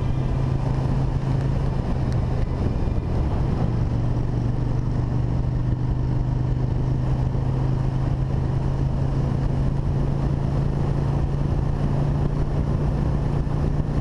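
Motorcycle trike engine running steadily at cruising speed, heard from the rider's seat with wind and road noise on the microphone. The engine note steps up slightly a few seconds in and again near the end.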